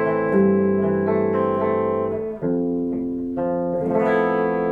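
Cort MBC-1 electric guitar played clean, without distortion: sustained chords ringing clearly, changing about every one to two seconds. It is the clean reference tone with the Diezel VH4-2 distortion pedal off.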